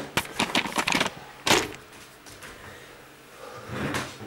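Small objects being handled: a quick run of light clicks and knocks in the first second, then a single louder knock about a second and a half in.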